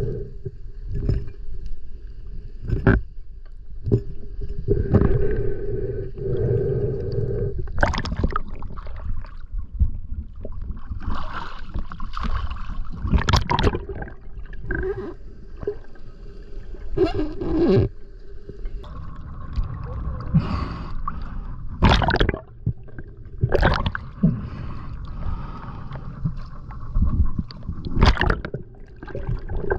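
Muffled underwater sound through a camera housing: water moving around the diver, broken by many irregular knocks and clicks as he handles the spear shaft, fish and line.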